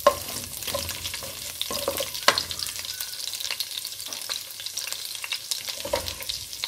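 Chopped garlic sizzling in hot oil in a kadhai while a ladle stirs it, scraping and tapping against the pan. There is a sharper knock right at the start and another a little over two seconds in.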